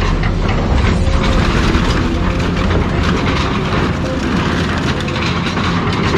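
Heavy scrapyard machine tearing up scrap cars: a low engine rumble under continual metal clanking and crunching.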